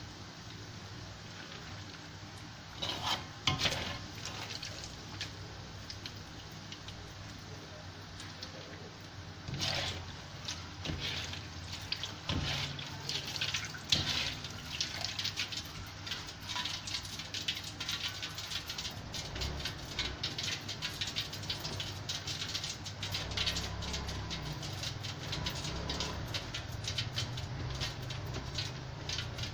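Peanuts deep-frying in hot oil in an aluminium wok, a steady sizzle with crackling that grows busier in the second half. A metal slotted ladle knocks and scrapes against the wok a few times as the peanuts are scooped out.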